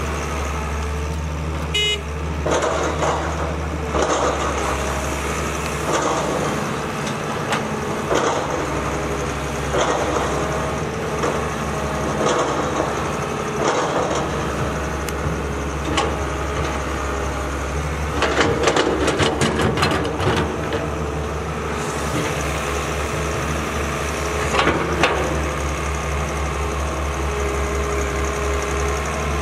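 Caterpillar 320 hydraulic excavator's diesel engine running steadily under digging load, with the bucket scraping and clattering through dry soil in repeated bouts. A quick run of rattling knocks comes about two-thirds of the way through.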